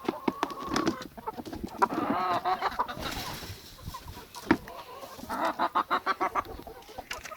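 Domestic chickens clucking, with quick runs of clucks about two seconds in and again around five to six seconds.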